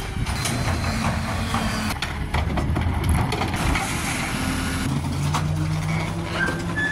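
Garbage trucks at work in quick succession: diesel engines running while automated arms lift and dump carts and a compactor packs, with knocks and clanks. The sound changes abruptly about two and five seconds in.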